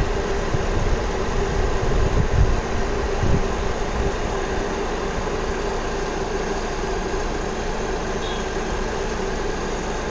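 Volkswagen Vento 1.6 engine idling steadily under the open bonnet, a constant hum. There are a few low thumps in the first three seconds.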